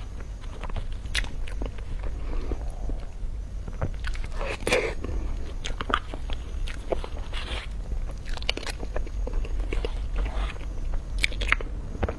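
A person biting and chewing food close to the microphone: scattered crisp crunches and wet mouth clicks at an irregular pace.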